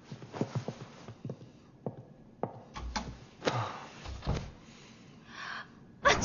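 Irregular light taps and knocks in a small room, with heavier thuds a little past the middle, and a sudden loud sound at the very end.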